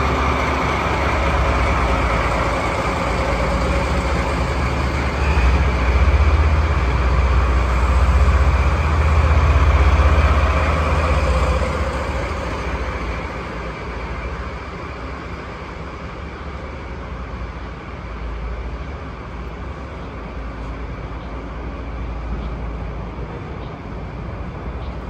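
A DD51 diesel-hydraulic locomotive's twin V12 diesel engines working as it pulls a train away and passes close by, with a heavy rumble loudest about five to eleven seconds in. After about twelve seconds the rumble fades and the passenger coaches roll past with steady wheel-on-rail noise.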